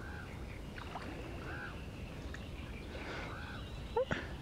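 Quiet riverside outdoor background with a bird calling faintly about every one and a half seconds, and a short sharp sound about four seconds in.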